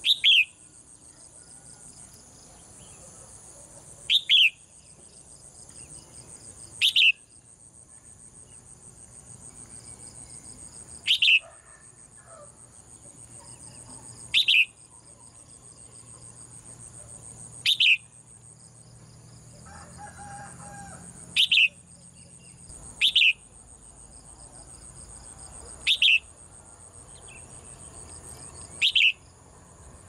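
Red-whiskered bulbul giving short, sharp single calls, each dropping quickly in pitch, about every three seconds, ten in all, over a steady high buzz of insects.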